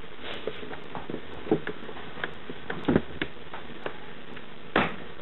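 Objects being handled on a kitchen counter: a few scattered knocks and clicks, the strongest about one and a half, three and nearly five seconds in, over a steady hiss.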